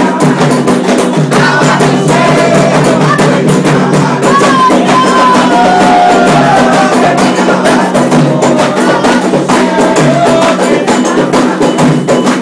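Loud ritual percussion music with singing: a fast, dense beat of hand drums and small percussion under a wavering sung melody, typical of a Candomblé toque for the orixás.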